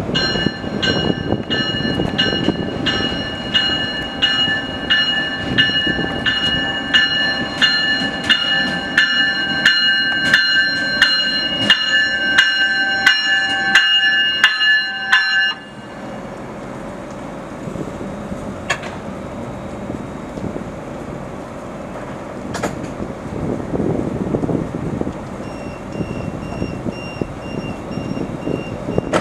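Stadler GTW 2/6 diesel light rail train ringing its warning bell steadily, about two strikes a second, over its running rumble as it pulls into the station. The bell stops abruptly about halfway through, leaving the train's diesel engine idling at the platform. A quick run of short electronic beeps sounds near the end.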